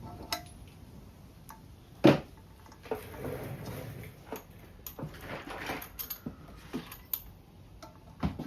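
Metal hand tools and engine parts clinking and knocking as they are handled, with a sharp clank about two seconds in and another near the end.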